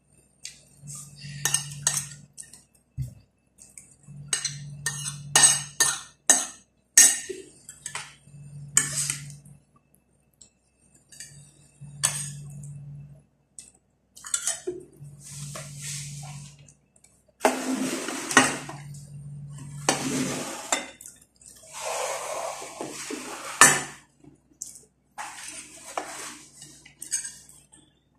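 Metal spoon and fork clinking, tapping and scraping against plates and a serving dish as rice is served and mixed, a run of sharp clicks in the first half and longer scraping noises in the second half.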